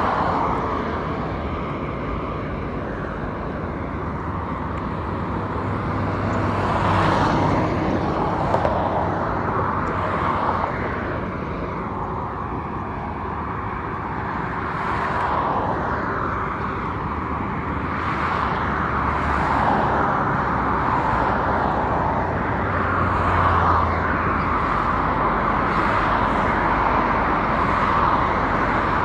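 Highway traffic humming steadily, with cars passing one after another in swells of tyre and road noise every few seconds.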